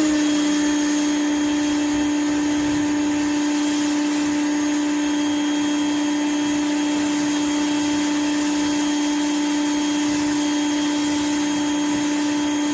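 Vlaseo electric pressure washer running steadily while spraying water: a constant motor-and-pump hum over the hiss of the spray.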